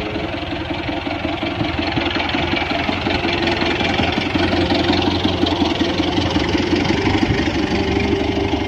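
New Holland Dabang 85 tractor's diesel engine running as the tractor moves off, pulling a laser land-leveler blade through dry loose soil; the engine gets louder over the first few seconds and then holds steady.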